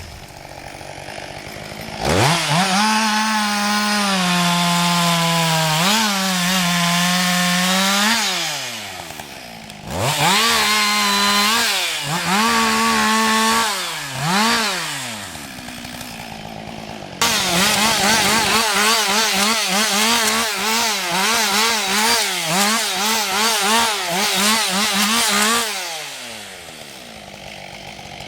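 Husqvarna 560 XP two-stroke chainsaw revving from idle to full throttle and cutting wood, dropping back to idle between cuts, several times over. The pitch sags while the chain is under load, and in the last long cut it wavers quickly up and down.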